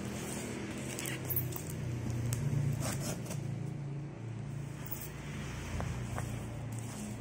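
Cardboard shipping box being handled and shifted on a glass counter: a few scrapes and light clicks, the busiest about three seconds in, over a steady low hum.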